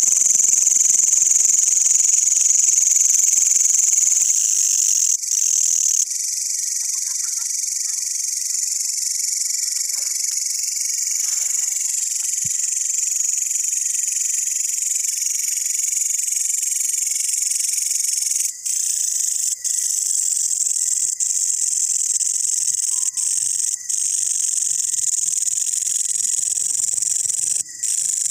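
Long-horned grasshoppers (katydids) singing: a continuous high-pitched insect trill, breaking off briefly a few times in the second half.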